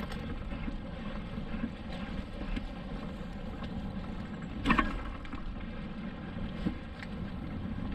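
Wind rushing over the microphone of a camera mounted on a hang glider, a steady rumble, with one short thump about four and a half seconds in as the glider and pilot go down onto the sand.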